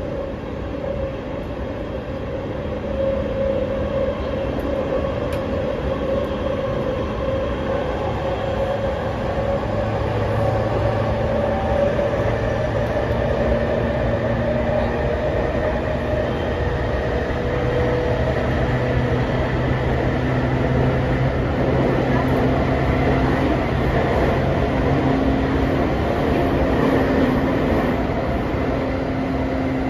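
Running sound inside a passenger car of a JR East E231-0 series electric train: a steady rumble of wheels on rail with the low hum of the motors. The motor tones climb slowly in pitch and grow a little louder over the stretch.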